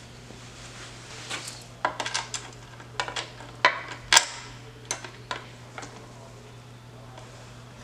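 Metal tools and small bike parts clinking and clattering: an irregular run of sharp clinks starting about a second in, the loudest near the middle, dying away before the end, over a steady low hum.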